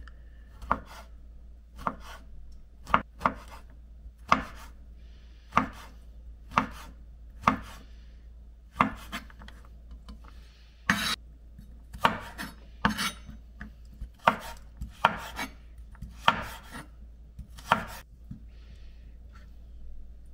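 Kitchen knife slicing zucchini on a wooden cutting board: separate sharp knocks of the blade on the board, about one a second, at an unhurried, uneven pace.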